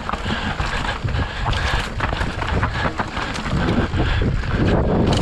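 Yeti SB150 mountain bike riding over a rocky trail: tyres on stones and a steady run of small knocks and rattles from the bike, under wind buffeting the microphone. The low wind rumble grows stronger near the end.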